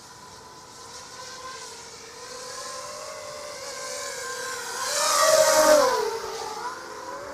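ZMR250 FPV racing quadcopter's motors and props whining as it flies past, growing louder to a peak about five and a half seconds in, then the pitch drops as it goes by.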